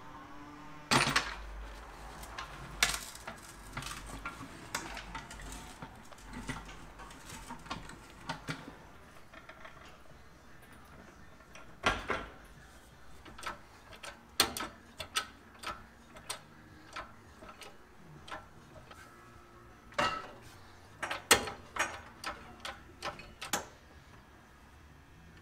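Irregular metal clanks and knocks of hand tools and a steel floor jack while working under a pickup truck, with a low rumble during the first few seconds.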